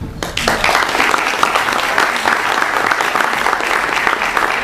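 Audience applauding: a steady round of many people clapping that starts a moment in.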